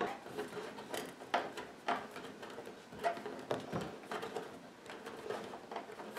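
Phillips screwdriver turning screws by hand through a steel hinge bracket into a wooden cabinet: faint, irregular clicks and scrapes of metal on metal and wood.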